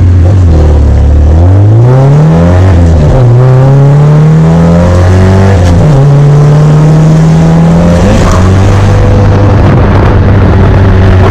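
Nissan 240SX drift car's four-cylinder engine, heard from inside the cabin, pulling hard from a launch. The revs climb and drop at gear changes about two and a half and six seconds in, then hold steady, easing lower near the end.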